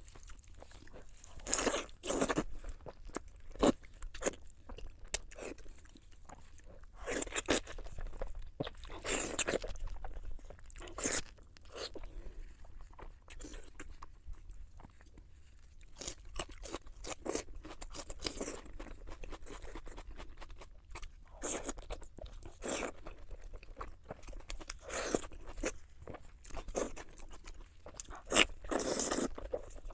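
Close-up eating sounds: sweet pork in spicy chili sauce being bitten, crunched and chewed in bursts every few seconds.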